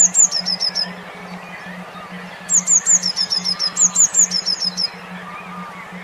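Recorded songbird chirping in loud, high phrases: two or three down-slurred whistles followed by a quick run of shorter chirps, heard near the start and twice more from about two and a half seconds in. Fainter chirps of other birds and a low pulsing hum run underneath.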